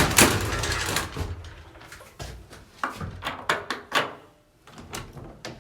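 Residential elevator door opening, a loud noisy slide in the first second, followed by a string of sharp clicks and knocks.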